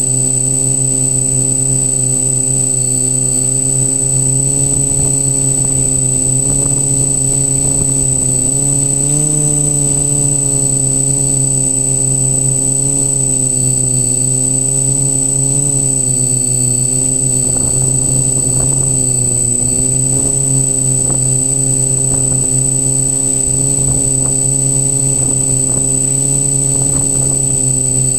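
Quadcopter's brushless motors and propellers buzzing, heard from a camera mounted on the frame: a steady hum of several stacked tones whose pitch drifts up and down together as the motors speed up and slow down, with a constant high whine above it. Brief crackles come through in the second half.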